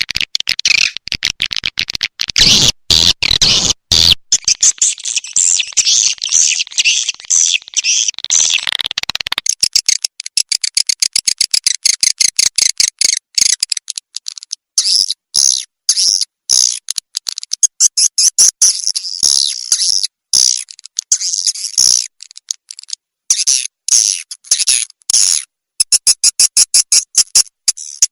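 Swiftlet lure call: rapid trains of high-pitched chirps and clicking twitters, broken by short gaps, played to draw swiftlets into a nesting house. The chirps turn higher-pitched after about ten seconds.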